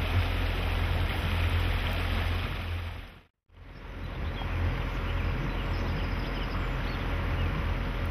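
Motorboat engine running steadily under way, a low hum under the rush of water and wind. It fades out to silence for a moment about three seconds in, then comes back.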